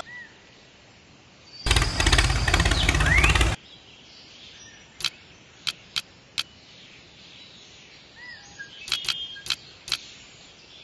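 Small clay balls clicking sharply as they are set down by hand, four clicks about halfway through and a quick cluster near the end. Before them a loud, noisy burst about two seconds long, engine-like, and a bird chirps faintly twice.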